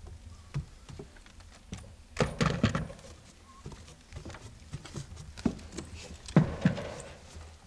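Knocks and scuffs of someone climbing a wooden ladder, hands and feet striking the rungs. Louder clusters of thumps come about two seconds in and again about six and a half seconds in.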